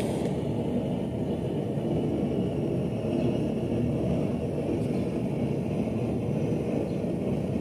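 Steady low rumble, even and unbroken, with no hammer strikes or other distinct events.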